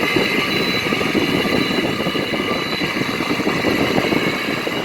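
Frigidaire window air conditioner running, its fan blowing hard with a dense fluttering rumble and a steady high whine. The unit is really noisy, with a gravelly sound that the owner puts down to horrible fan-motor bearings.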